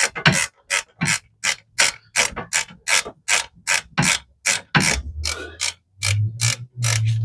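A hand ratchet wrench clicking in a steady series, about three clicks a second, as it tightens a brake caliper bolt.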